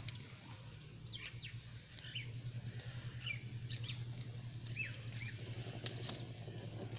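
Small birds chirping: short, high calls that slide downward, scattered through the stretch over a steady low hum. A few faint clicks come from a small wood fire.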